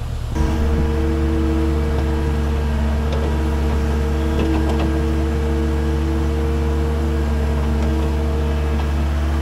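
Cat 310 excavator's diesel engine and hydraulics running under load as the bucket works dirt: a steady low drone with a hydraulic whine over it, heard from the operator's cab. It grows louder about half a second in.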